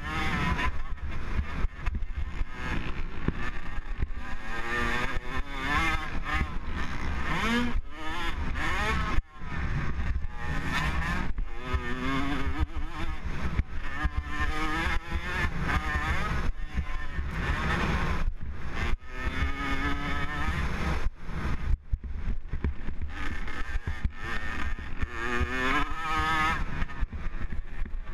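Motocross dirt bike engine under hard racing throttle, heard from the rider's helmet: the revs climb and fall over and over with gear shifts and throttle changes, with brief sharp cut-offs about nine seconds in and again near twenty-two seconds.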